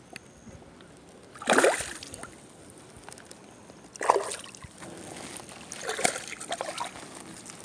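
Water splashing in three short bursts at the surface: a small hooked bass thrashing as it is brought to the float tube.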